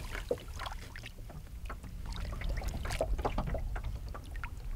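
Lake water splashing and dripping, with scattered small knocks, as a musky is handled in a landing net at the side of a boat, over a low steady rumble underneath.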